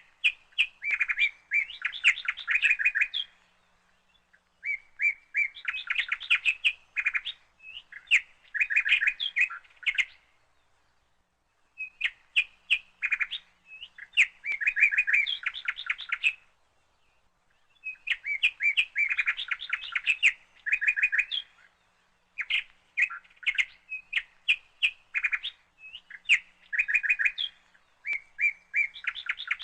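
Songbird chirping and trilling in repeated phrases of rapid notes, each phrase lasting one to three seconds with short pauses between.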